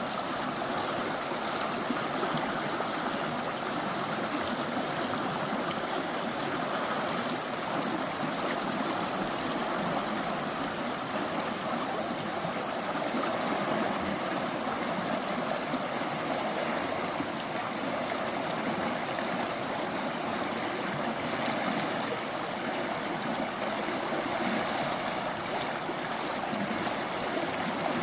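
A stream running steadily, a constant rush of flowing water.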